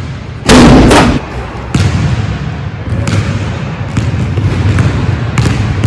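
A basketball bouncing and thudding on a hardwood gym floor, in an echoing hall, with scattered sharp knocks. A loud burst of noise comes about half a second in.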